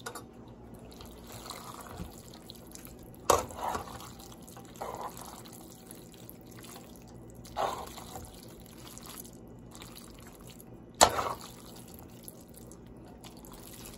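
Metal tongs tossing fettuccine in a creamy Alfredo sauce in a pan: wet squelching and dripping of the sauce-coated noodles, with a few sharp clicks of the tongs against the pan, the loudest about three seconds in and again near eleven seconds.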